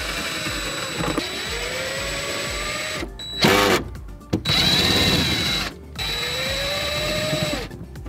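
Power drill running in several bursts, its pitch swelling and sagging as the trigger is worked, with short breaks in between.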